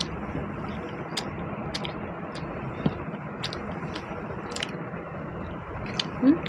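A person chewing a mouthful of pulao and chicken curry, with scattered wet mouth clicks and smacks at irregular moments over a steady background hiss. A brief low hum comes just before the end.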